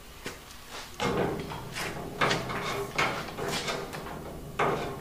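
A run of scrapes and knocks, about six of them, as a power-tool cord is pulled and dragged across a rusty steel plate and loader bucket.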